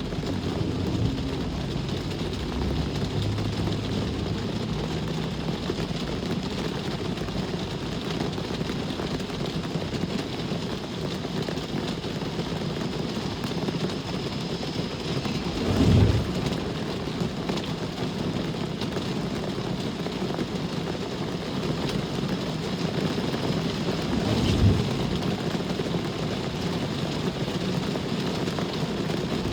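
Steady rain hissing, with traffic in the background; a brief low rumble swells up about halfway through and again near the end.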